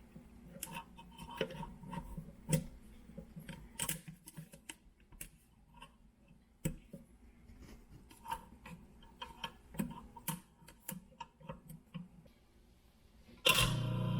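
Irregular light clicks and taps around the kitchen garbage disposal. Near the end comes a sudden, much louder start with a low hum as the disposal is switched on and runs.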